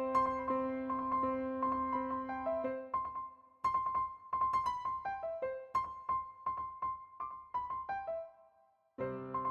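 Background music on a keyboard: a bright, plucky melody that keeps returning to one repeated high note over lower held bass notes. It breaks off briefly about three seconds in and again for about a second near the end before starting up again.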